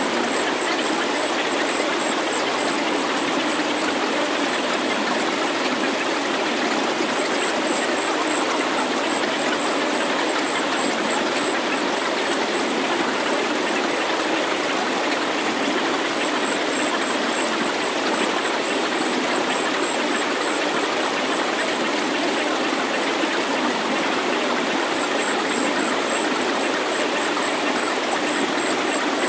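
Synthesized healing-frequency sound track: a steady, even rushing noise like filtered white noise, with no bass. A faint high-pitched tone pulses rapidly above it, coming and going every few seconds.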